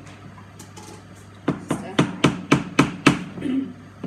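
Wooden spoon knocking against a stainless steel saucepan, about seven quick sharp knocks at roughly four a second.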